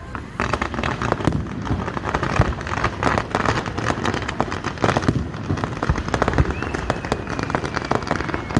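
Fireworks going off in a dense barrage: many rapid bangs and crackles, one after another. A faint thin whistle, sliding slightly down, comes in near the end.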